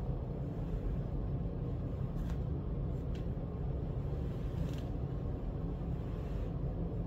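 A steady low rumble, with a few soft rustles about two to five seconds in as the cat is lifted and held.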